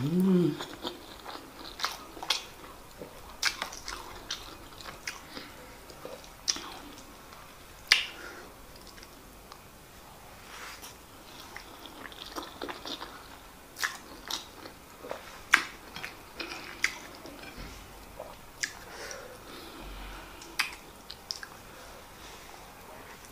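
Close-miked mouth sounds of a person eating handfuls of white rice with stew: chewing with irregular sharp, wet lip smacks and clicks, several every few seconds.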